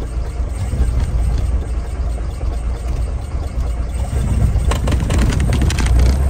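Piper Warrior's four-cylinder Lycoming piston engine running at idle just after being started, a steady low rumble. A quick run of fine clicks near the end.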